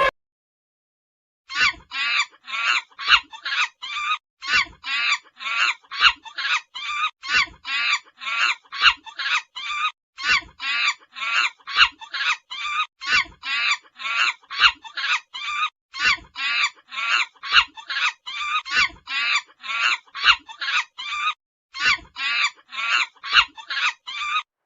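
An animal calling in a rapid, even run of short, sharp calls, about three a second, with one brief break.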